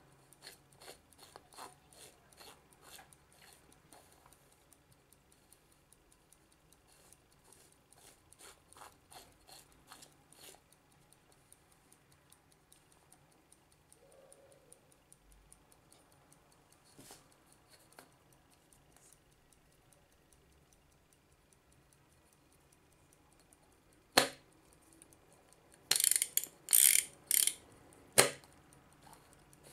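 Soviet ChS panel clock's knurled bezel being turned by hand, its mechanism giving two runs of light, even ratchet clicks at about three a second. A few much louder sharp clicks near the end as the clock is handled.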